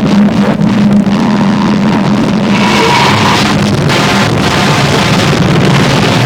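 Harsh noise music: a dense, loud wall of distorted noise over a steady low drone.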